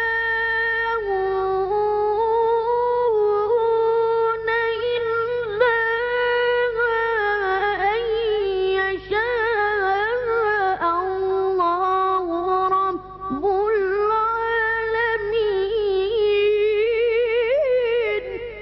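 A solo voice chanting a Quran recitation in long, ornamented melodic lines, with wavering held notes and slides in pitch. This is the drawn-out melodic elongation of tajweed recitation.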